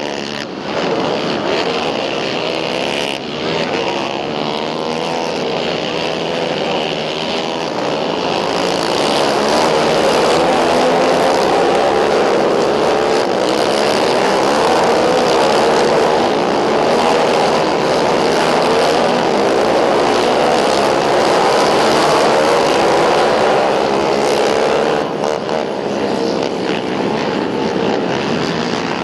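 A pack of racing ATVs (quads) on a dirt flat track, many engines running at high revs with pitches wavering as the riders go through the turns. It grows louder about eight seconds in and falls back about twenty-five seconds in as the pack passes close.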